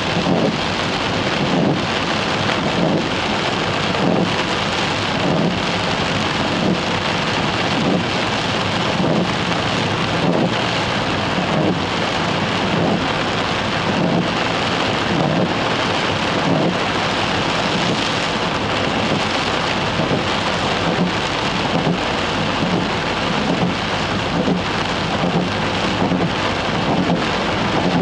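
Heavy rain falling on a car's roof and windscreen, heard from inside the moving car: a dense, steady hiss and patter that does not let up.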